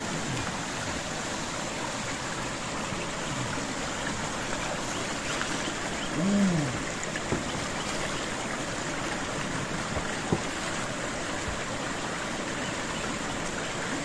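A small forest stream running steadily over rocks and through little cascades. About six seconds in there is a brief low sound that rises and falls in pitch.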